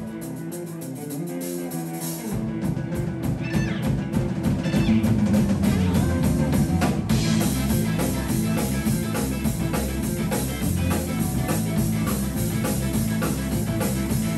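Live band playing with electric guitars and a drum kit, rock-style. The music is lighter at first and turns fuller, with steady drums and bass, about two seconds in.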